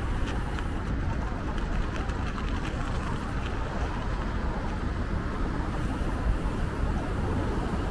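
Steady city street traffic noise, a continuous rumble of passing motor vehicles.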